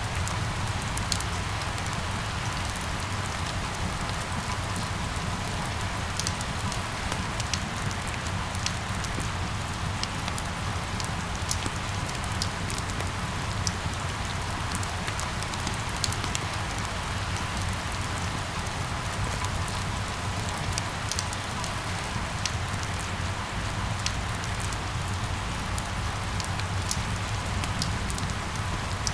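Steady rain falling, with scattered individual drops ticking over an even hiss and a low, steady rumble underneath.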